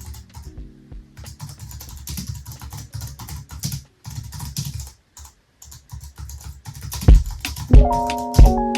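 Fast typing on a computer keyboard: a dense run of key clicks with a couple of short pauses. Lofi music with a kick drum and chords comes in about seven seconds in.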